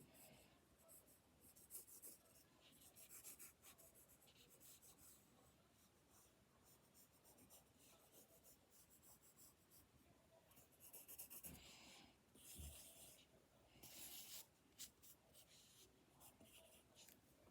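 Faint scratching of a drawing tool on paper, in short irregular strokes: a toy's outline being sketched by hand.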